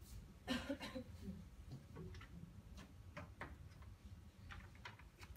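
Scattered light clicks and taps, about a dozen, over a low steady room hum, with a slightly louder muffled knock about half a second in.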